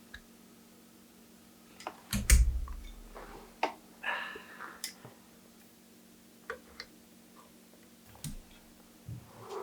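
Bicycle parts and tools being handled during a bike build: scattered light clicks and knocks, with one heavy thump about two seconds in and a brief scraping rustle a couple of seconds later.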